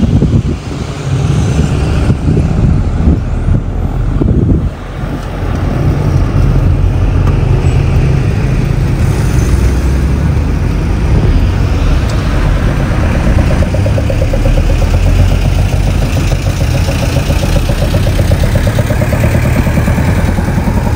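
Van driving in town, its engine and tyre noise heard from inside the cab as a steady low drone, easing briefly twice near the start.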